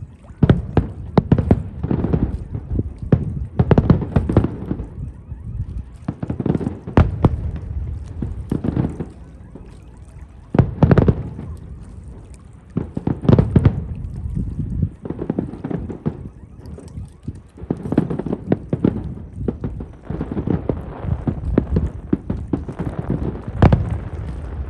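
Aerial fireworks bursting in quick succession: a continuous run of sharp bangs, often several close together in clusters, some followed by a brief crackle or echo.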